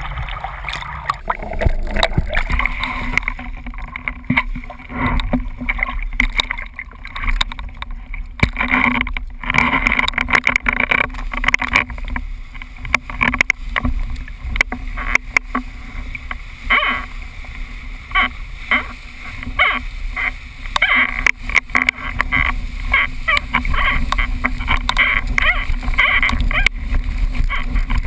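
Windsurf board planing over choppy water, with water rushing and splashing against the hull and wind buffeting the action camera's microphone. Irregular slaps of spray and chop hit the board throughout.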